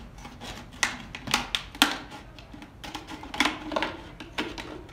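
Scissors snipping through the thin wall of a clear plastic bottle, a series of irregular crisp snips as the top is cut off along a line.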